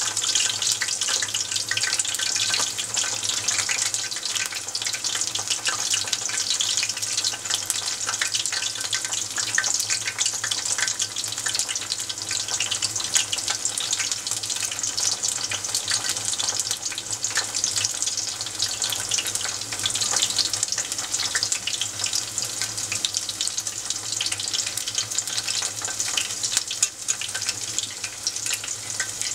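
Vegetable tempura, battered eggplant among the pieces, deep-frying in a pot of hot oil: a steady, dense crackling sizzle.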